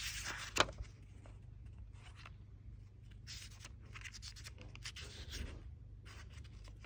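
Paper rustling and scraping as the sheets of a handmade paper desk calendar are handled and flipped on a desk, with a sharp tap about half a second in.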